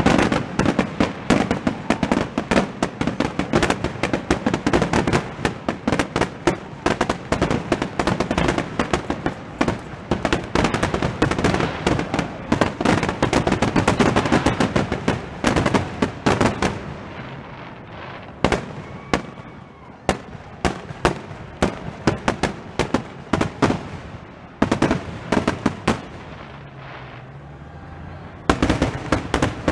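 Aerial fireworks shells bursting in a rapid barrage, many sharp bangs a second, for about the first sixteen seconds. The bangs then thin out to scattered reports before a dense run starts up again near the end.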